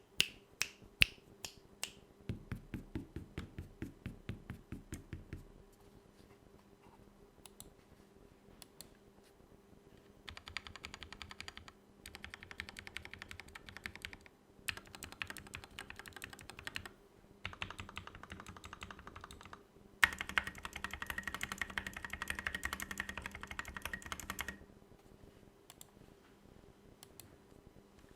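Mechanical keyboard with lubed Gateron Black linear switches being typed on: a run of evenly paced single key presses, scattered single clicks, then several fast bursts of typing, the loudest burst about two thirds of the way through.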